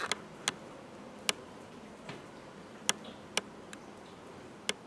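Sharp, separate clicks, about six over five seconds at irregular spacing, over a faint steady hiss.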